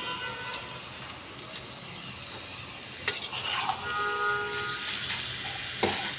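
Chickpeas sizzling as they fry in a pan of spiced oil while being stirred, with a spoon knocking sharply against the pan twice: once about halfway through and once near the end.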